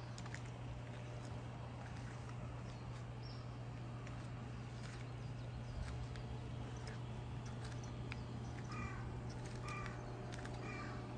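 Outdoor ambience: a steady low hum under scattered chirping birds, with three short calls about a second apart near the end.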